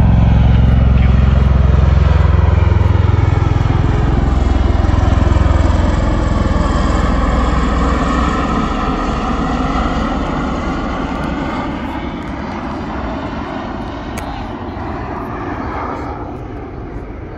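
V-22 Osprey tiltrotor flying past overhead: the deep, rapid beat of its two large proprotors over the whine of its Rolls-Royce AE 1107C turboshaft engines. The low beat is strongest in the first few seconds, then fades as the aircraft moves away, leaving a fainter whine.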